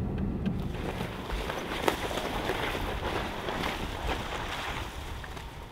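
Wind blowing across the microphone with a steady rustling noise, and one sharp light knock about two seconds in.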